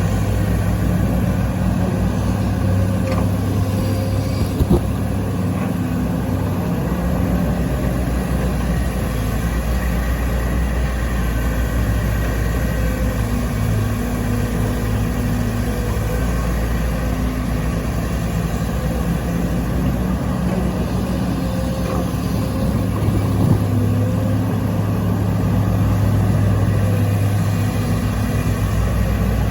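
Excavator's diesel engine running steadily, with a couple of brief knocks, one about five seconds in and another after about twenty-three seconds.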